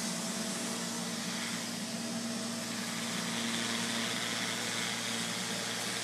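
Neato Robotics robot vacuum running as it drives across a hardwood floor: a steady motor hum with a whine and a hiss, at an even level.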